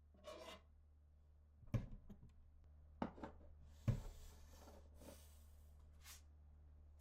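Kitchenware being handled: three sharp knocks, about a second apart, and short stretches of light rustling and scraping over a steady low hum.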